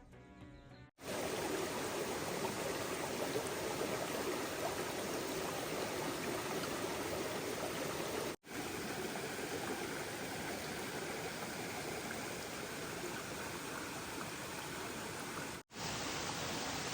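Steady rush of flowing stream water, broken by two abrupt cuts, one about halfway through and one near the end. Music ends about a second in.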